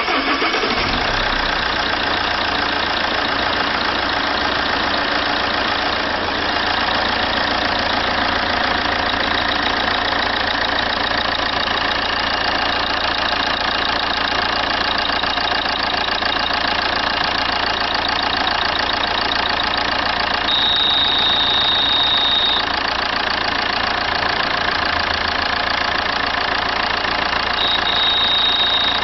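Common-rail diesel engine idling steadily with a clatter. Near the end a steady high beep sounds twice, each about two seconds long.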